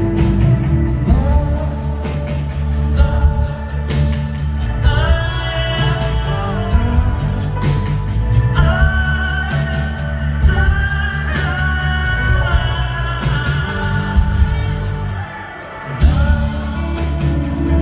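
Live band with drums, electric guitars and keyboard playing, with a male lead vocal singing over it. Near the end the band drops out for about a second, then comes back in all together with a hit.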